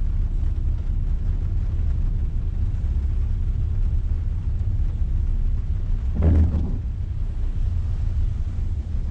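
Steady low rumble of a Renault car's engine and tyres heard from inside the moving cabin. About six seconds in there is one short, louder sound.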